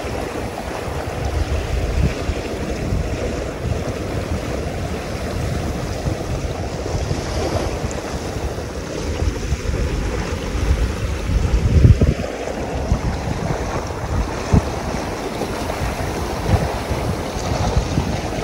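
Wind buffeting the microphone over the rush of water past the hull of a Pearson Triton sailboat under sail. Gusts swell and fade, strongest about twelve seconds in.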